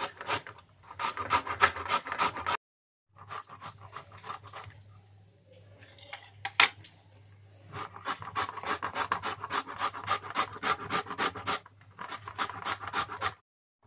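Peeled bottle gourd being grated by hand on a flat grater with a stainless steel blade, in quick, even rasping strokes, several a second. The grating stops for a few seconds in the middle, with one sharp knock, then starts again.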